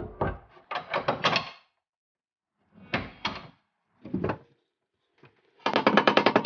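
Metal clunks and knocks as a panhard rod is fitted into its mounts, followed near the end by a rapid, even hammering of about a second and a half from an impact wrench running a bolt in.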